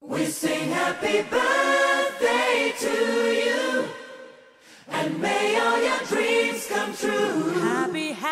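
A group of voices singing together, breaking off briefly about halfway through before picking up again.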